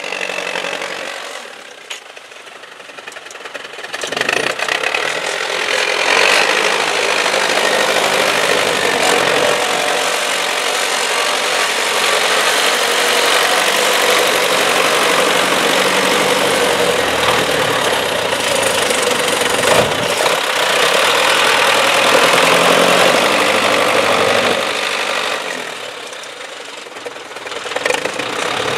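MTZ-82.1 tractor's diesel engine running while it pulls a plough through wet soil. It dips clearly quieter for a couple of seconds near the start and again near the end.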